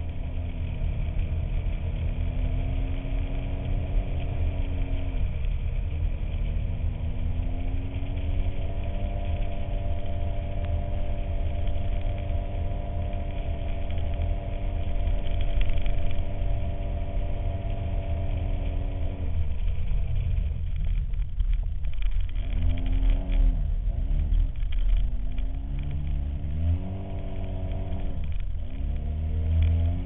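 Polaris RZR side-by-side's four-stroke twin-cylinder engine pulling the vehicle along at a steady speed, its pitch dipping and rising again about five seconds in, then falling away and picking back up several times in the last third as the throttle is eased and reapplied. A heavy low rumble runs under it throughout.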